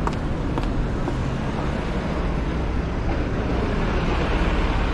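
Steady rumble of busy road traffic, with wind buffeting the microphone.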